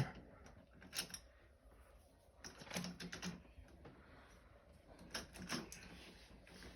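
Screwdriver working a long screw out of a door lock: scattered light clicks and scrapes in small clusters, about a second in, near three seconds and again past five seconds.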